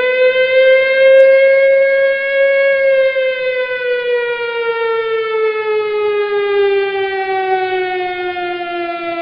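Air-raid siren sound effect: one long wailing tone that holds at its peak for the first few seconds, then slowly falls in pitch.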